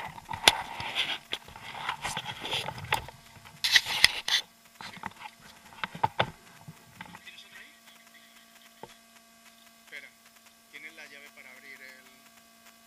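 Clothing and gear rubbing and knocking against a body-worn action camera, with several sharp clicks, for the first six seconds or so, then quieter handling. A steady electrical hum runs underneath, and faint voices come in near the end.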